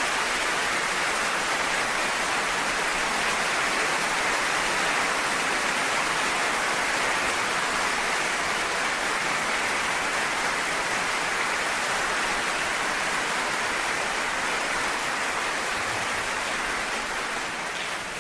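Concert audience applauding steadily in a hall, fading out near the end.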